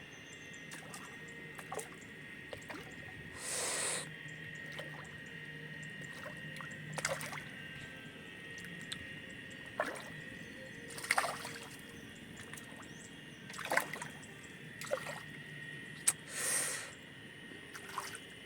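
Short splashes and sloshes of water every few seconds, with small clicks between them, over a steady high-pitched drone of insects.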